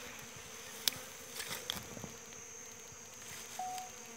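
Flies buzzing around an animal carcass, a steady faint hum. A few sharp clicks break in, the loudest about a second in.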